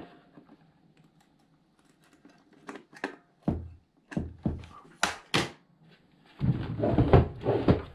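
Small clicks and knocks of a screwdriver and wires at the battery terminals in the plastic case of an Altec Lansing iMT800 speaker dock. Near the end comes a louder stretch of bumps and rubbing as the dock is handled and turned over.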